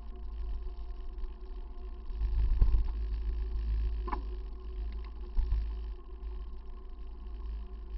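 Wind buffeting and road rumble on the microphone of a camera riding along a road on a bicycle, with a faint steady whine underneath. The rumble swells about two seconds in and eases after three and a half seconds. There is a short sharp tick a little after four seconds.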